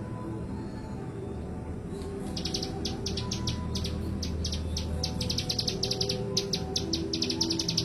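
Ciblek gunung, a prinia, singing a fast run of sharp, high chips, about six a second, starting about two seconds in and running on without a break.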